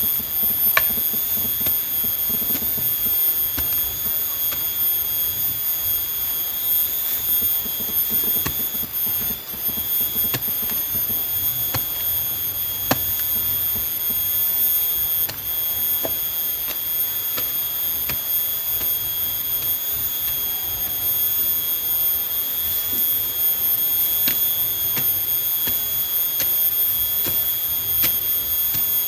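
Insects, most likely cicadas, droning loud and shrill without a break, several high pitches held steady together. A few faint knocks come through underneath.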